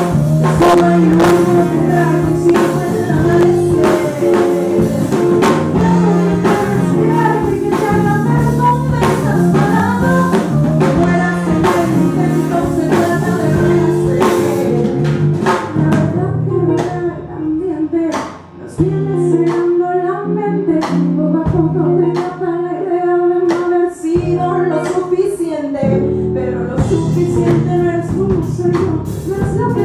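Live soul-folk band: a woman singing lead over electric bass, guitar and drum kit. The drums thin out about halfway through, and the full band comes back in near the end.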